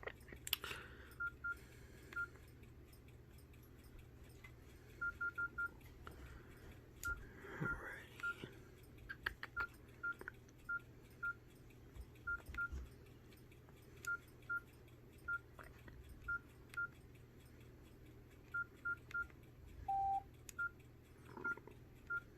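Nokia 6682 keypad tones: short high beeps, singly or in quick runs of two to four, as keys are pressed to scroll through the phone's menus, with a few faint button clicks. About twenty seconds in comes one lower, longer beep.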